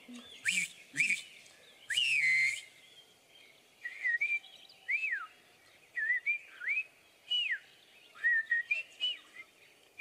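A man whistling imitations of bird calls: a string of short sliding whistles, some rising and some falling, about one a second, with a few breathy puffs in the first couple of seconds.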